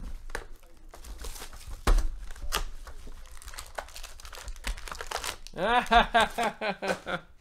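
Plastic wrapping crinkling and tearing as a sealed trading card box is unwrapped and opened, with sharp crackles throughout. A man's voice sounds briefly, a little over five seconds in.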